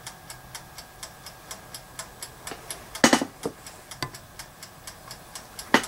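Toaster oven's clockwork timer ticking steadily, about five ticks a second, as it counts down a solder reflow. There is a louder knock about three seconds in and another near the end.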